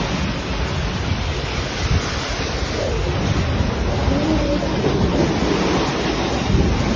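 Loud, steady rushing noise, strongest in the bass, with faint voices about three to five seconds in.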